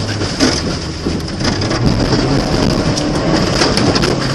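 Audi 80 quattro rally car driven hard on a snowy stage, heard inside the cabin: the engine runs under load, its pitch dropping just after the start, under a dense rush and crackle of snow and ice thrown against the body and underside.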